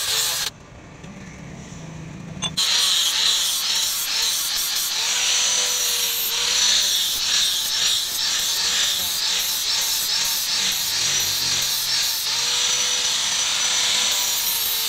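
Handheld electric angle grinder running against the car leaf-spring steel of a sword blade, its high motor whine wavering in pitch as the disc bears on the metal. About half a second in the sound cuts out, and it comes back with a click about two seconds later.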